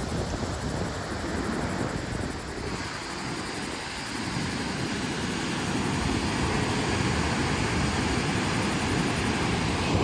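Ocean surf breaking on a sandy beach, a steady rushing wash, with wind buffeting the microphone. It grows a little louder after about four seconds.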